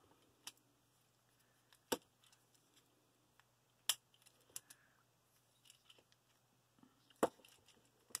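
Hard plastic parts of a Transformers action figure clicking and tapping as they are handled and pressed together to peg in: about five sharp separate clicks with faint fiddling between.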